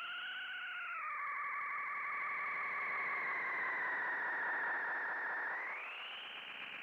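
Monacor EEM-1200 bucket-brigade analog delay self-oscillating with feedback at maximum and no input: a continuous, rich pitched tone. It wavers quickly at first, slides down in pitch about a second in, holds, then glides back up near the end.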